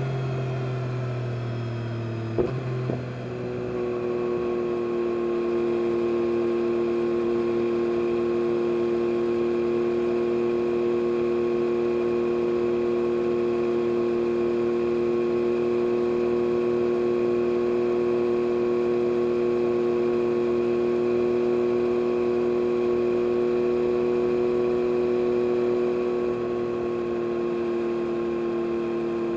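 2022 Yamaha MT-09 SP's 890 cc inline-three with an Akrapovic carbon race exhaust: the revs fall over the first two seconds, a short click comes about two and a half seconds in, then the engine holds one steady note at constant revs, cruising at speed.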